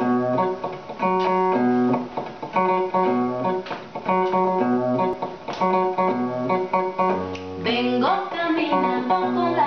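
Instrumental intro played together on an electric guitar through a small amplifier and an acoustic guitar: picked chords repeating in a steady rhythm, with a note rising in pitch about eight seconds in.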